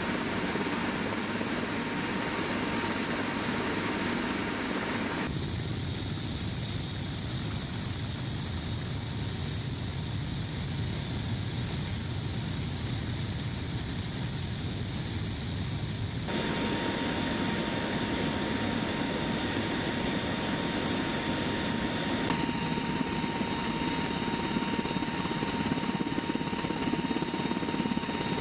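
Steady drone of the HC-130J Combat King II's turboprop engines and rushing air heard from inside the cabin, with a thin steady tone over it. The sound shifts abruptly about five, sixteen and twenty-two seconds in.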